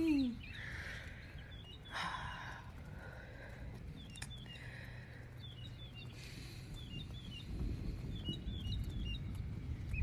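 Birds chirping in short clusters of quick high notes every second or so, over a faint steady background; a low rumble comes in during the second half.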